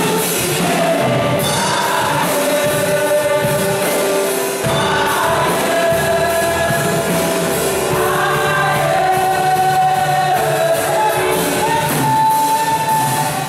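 Women's gospel choir singing together through microphones and a PA system, with long held notes; a high note is held for about a second near the end.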